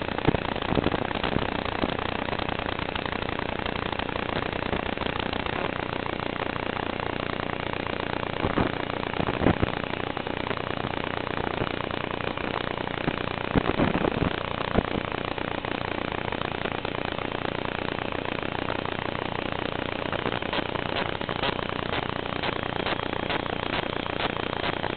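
Steady hiss of static on the audio track of an Aomway Commander V1 FPV goggles' DVR recording, the raw noise picked up with the analog video feed. A few sharp crackles come near the start and in the middle.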